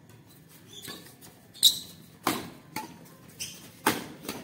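Badminton racquets striking a shuttlecock in a fast doubles rally: about six sharp hits, roughly half a second apart, starting a little over a second and a half in, the first the loudest.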